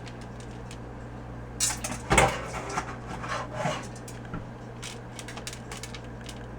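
Kitchen clatter: two sharp knocks about two seconds in, then lighter knocks and rattles, over a steady low hum.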